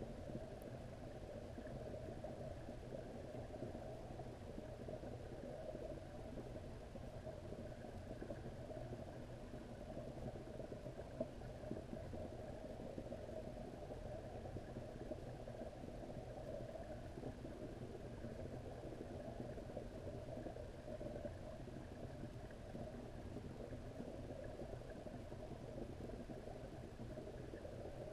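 Faint, steady underwater rumble and hiss in a pond, unchanging, with no distinct events.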